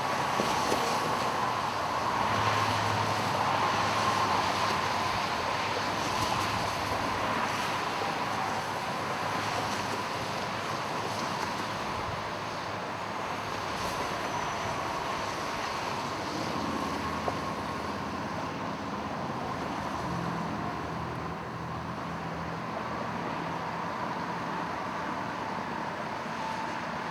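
Steady traffic noise with a continuous hiss, consistent with vehicles on a flooded roadway, and engine hums coming and going as vehicles pass.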